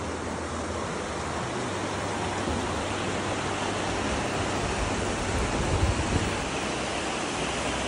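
Shallow, rocky mountain creek rushing over stones, a steady hiss of running water, with a few low thumps about six seconds in.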